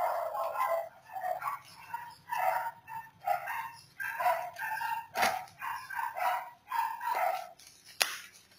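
A dog barking over and over in short yips, a few to every second or two. Two sharp clicks, one about five seconds in and one near the end, come from scissors cutting into the plastic wrapping.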